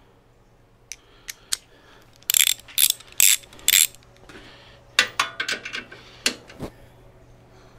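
Hand ratchet clicking as it works a bolt on the exhaust mounting bracket of a Harley-Davidson Softail, in several short bursts with a few separate clicks before them.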